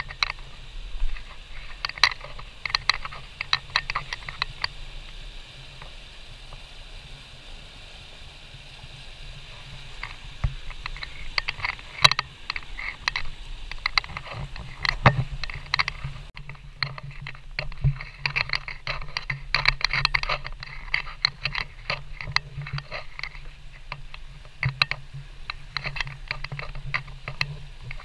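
Creek water rushing over rocks in small rapids, a steady noisy wash, with frequent small clicks and knocks close to the microphone on top of it.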